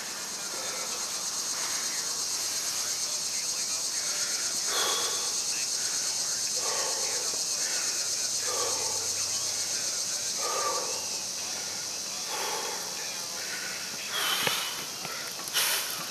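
A man breathing hard between heavy deadlift reps, one breath about every two seconds, over a constant high hiss. Near the end come a couple of sharp knocks as he takes hold of the loaded barbell.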